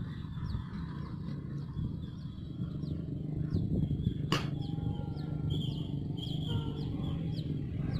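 Hino truck's diesel engine running with a low, steady hum in the distance, while birds chirp over it again and again. A single sharp click sounds about four seconds in.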